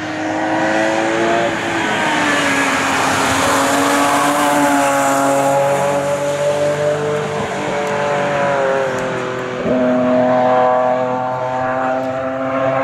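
Engine-swapped BMW E30 at full throttle on a race track, its engine note dropping in pitch as it passes. About ten seconds in there is an upshift, and the revs then climb again.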